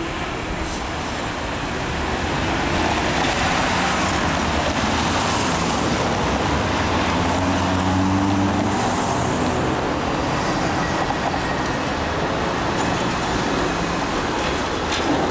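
Road traffic, with an articulated Škoda 15Tr trolleybus drawing up and passing close by. A low hum rises slightly in pitch midway through.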